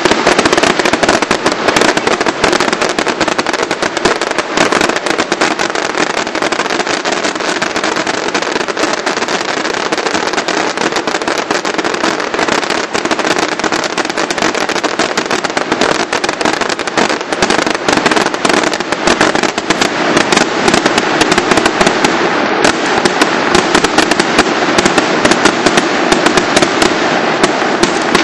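Fireworks display in a dense, continuous barrage: many explosions and crackles overlapping with no pause, growing more frequent and louder in the last third.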